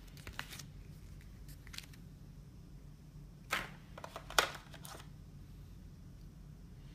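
Handling noise from unboxing: a brief paper rustle of manual pages at first, then a few sharp clicks and taps a little past the middle as a small metal phone ring holder is lifted out of a plastic packaging tray.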